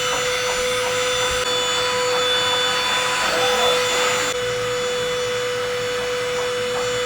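Baseus cordless handheld vacuum cleaner running: a steady high motor whine over the rush of air. At the very end it is switched off and the whine starts to fall as the motor spins down.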